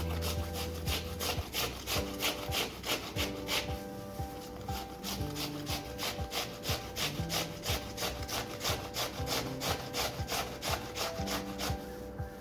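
Rhythmic rubbing or scraping strokes, about four a second, with background music underneath.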